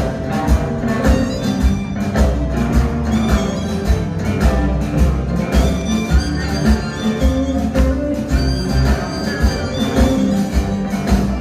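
Live blues band playing with a steady beat: electric guitar (a Telecaster), acoustic guitar, saxophones and drums together.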